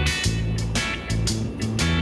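Background music: an upbeat track with plucked guitar, a bass line and a steady drum beat.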